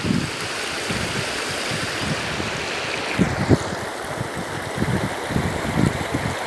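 Shallow, fast river rushing over stones and gravel: a steady hiss of water whose higher part drops away about three seconds in. Wind buffets the microphone in low gusts throughout.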